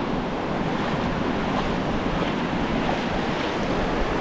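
Surf washing in over the shallows: a steady rush of small waves, with wind on the microphone.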